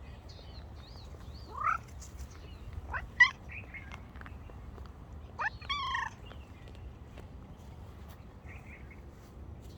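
Ginger domestic cat making three short rising calls, about a second and a half, three seconds and five and a half seconds in, the middle one the loudest, with fainter high chirps between them.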